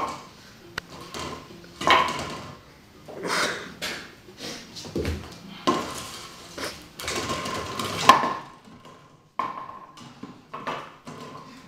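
An empty plastic water bottle crinkling and clattering on a wooden floor as a puppy bites, pushes and chases it, in irregular bursts with sharp clicks between.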